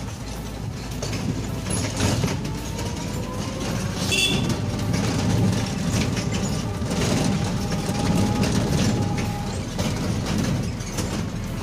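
Ride noise inside an open-sided passenger rickshaw: a steady low rumble, with the metal frame rattling and knocking as it rolls along the street.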